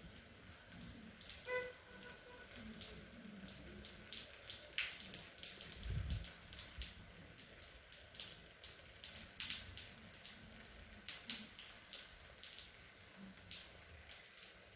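Light, fine rain falling, with many irregular drops and drips striking close by.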